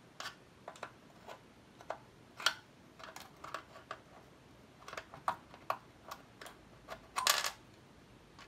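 Scattered light clicks and taps of desoldering work on a TRS-80 Model 1 circuit board as a video RAM chip is freed, with a short clatter about seven seconds in.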